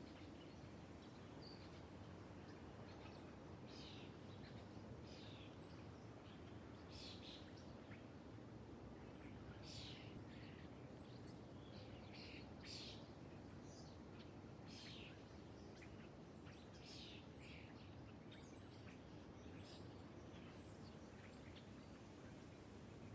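Birds chirping faintly in a nature ambience: many short, high calls scattered throughout over a steady low hiss.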